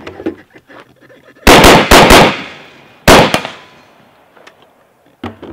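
AR-15-style rifle shots in a timed drill. A fast string of about four shots comes about a second and a half in, then a pair a second later, each group trailing off in an echo.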